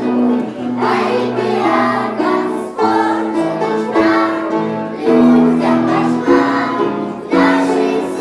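A children's song: young voices singing a tune together over instrumental accompaniment, in held notes that change every half second or so.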